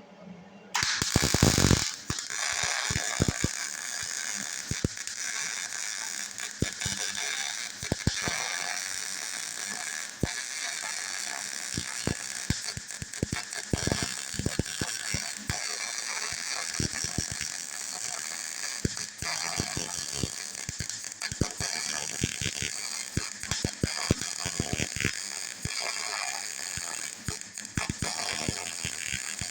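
Electric arc welding: the arc strikes about a second in and then crackles and sizzles steadily as gaps in a steel backhoe bucket are welded closed.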